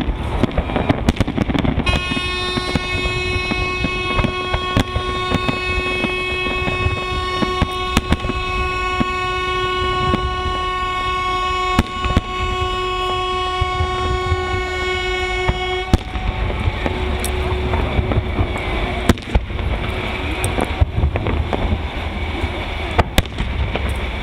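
A long, steady horn blast holding one pitch starts about two seconds in and cuts off abruptly after about fourteen seconds. Throughout, fireworks salute bangs and a continuous rumble and crackle go on.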